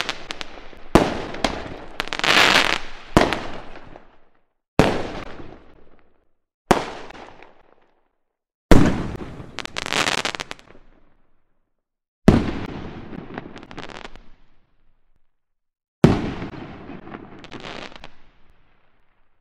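Fireworks going off: about nine sharp bangs spaced one to four seconds apart. Each is followed by a crackling, fizzing tail that dies away, with brief silences between some bursts.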